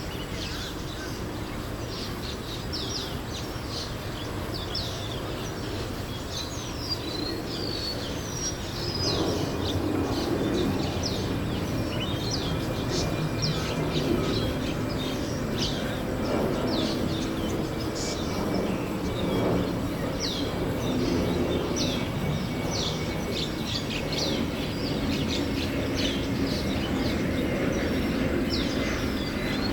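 Many small birds chirping in the treetops, a dense run of short, high, downward-sliding chirps that goes on throughout. A low rumble grows louder about nine seconds in and continues underneath.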